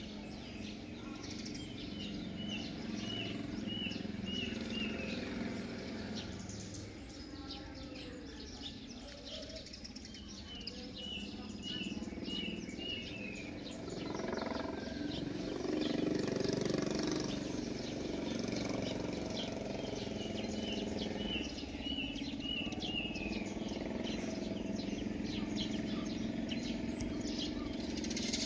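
Outdoor birdsong: one bird repeats a phrase of about six short, quick notes three times, some eight seconds apart, among scattered chirps from other birds. A steady low hum runs underneath.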